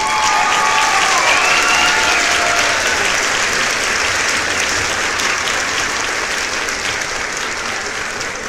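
Crowd applauding, with cheering voices over the clapping in the first few seconds; the applause tapers off slowly toward the end.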